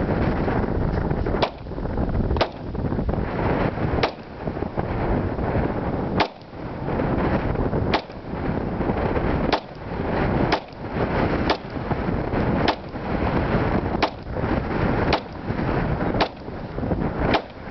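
Springfield XD Tactical .45 ACP pistol firing about a dozen shots in slow, steady succession, roughly one to one and a half seconds apart. Heavy wind buffets the microphone between the shots.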